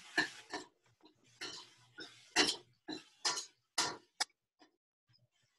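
Mushrooms being stirred in a pan on the stove: a run of short scrapes of a utensil against the pan, roughly two a second, stopping a little over four seconds in.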